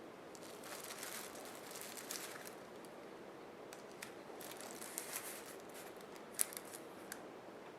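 Faint crinkling and rustling from small craft pieces being handled and placed by hand, with a few light clicks and one sharper tick near the end.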